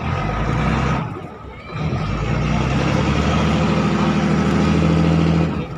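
Passenger boat's engine running with a steady low drone. It dips briefly about a second in, then runs steady again.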